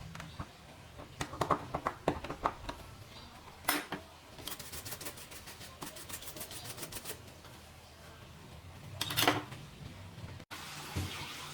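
Clicks and taps of small hard parts and tools being handled during laptop disassembly. There are scattered taps, then a run of about five quick, even clicks a second in the middle, and a louder knock near the end.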